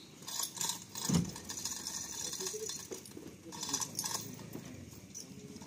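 Men's voices talking and calling out in the background while heavy wooden subwoofer cabinets are lifted and stacked, with scattered knocks and one louder thump about a second in.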